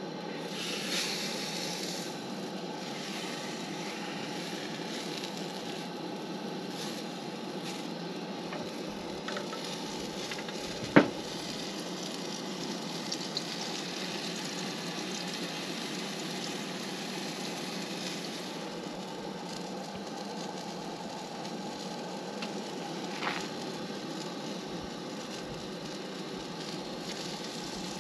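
Pancake batter sizzling in a frying pan over a propane camp stove, with the burner's steady hiss underneath. One sharp, loud clack about eleven seconds in.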